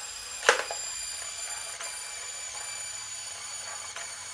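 Pull-string Grinch toy house with a sharp click about half a second in, then its spinning mechanism whirring as a steady high hum of several tones that sinks slightly in pitch.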